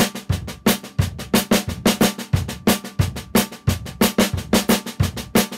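Drum kit played in a steady eighth-note beat with double accents: evenly spaced sharp stick strikes on the hi-hat and snare over a deep bass drum.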